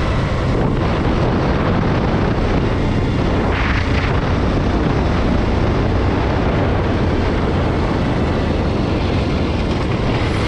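Steady loud wind rushing over an action-camera microphone on a moving motorcycle, with engine and road noise underneath.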